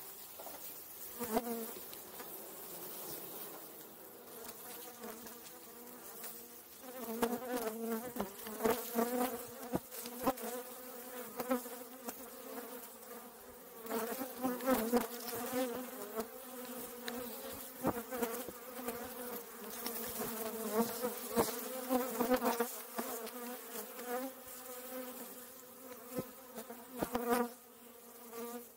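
Honey bees buzzing close up, a dense hum with a wavering pitch that grows louder several seconds in as the colony is disturbed. Frequent sharp clicks and knocks come from the wooden hive frames being lifted and handled.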